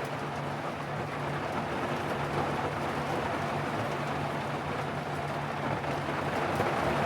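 Heavy rain falling on an Alu-Cab rooftop tent, heard from inside: a dense, steady hiss of rain with a faint low hum underneath.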